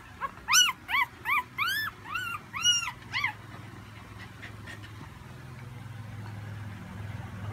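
Newborn corgi puppy crying: a run of about eight short high-pitched squeals, each rising and falling in pitch, stopping about three seconds in.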